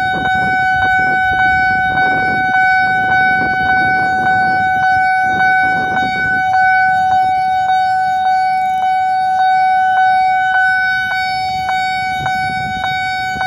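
Railway level-crossing warning alarm sounding: a loud, steady electronic ringing tone that pulses about three times a second. A low rumble of passing road vehicles runs under it for the first half and returns briefly near the end.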